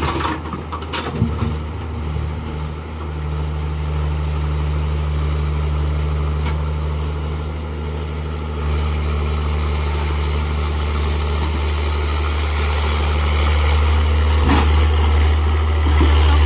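Diesel engine of a Tata Hitachi excavator running steadily, its note growing louder about nine seconds in and again near the end. A few short knocks near the start and once near the end.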